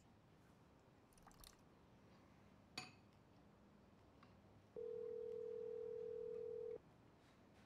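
Telephone ringback tone: one steady two-second ring on the line as a call rings through unanswered, with a couple of faint clicks before it.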